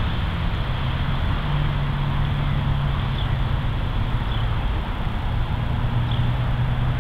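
Diesel-electric freight locomotives approaching slowly: a steady engine drone with a low hum that shifts slightly in pitch, over a constant rushing noise.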